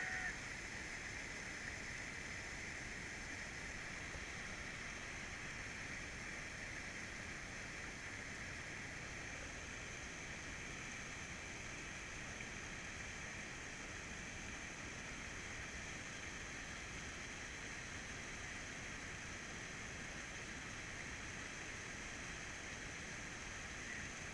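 Steady rush of flowing river water, an even hiss that holds unchanged throughout.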